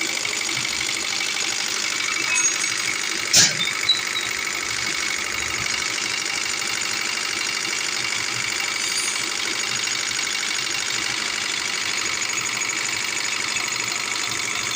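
Diesel injection pump running on a pump test bench, a steady mechanical whir with a fine rapid pulsing, with a sharp click about three and a half seconds in.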